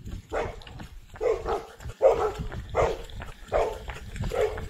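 A dog barking repeatedly, about six short barks less than a second apart, over a low rumble.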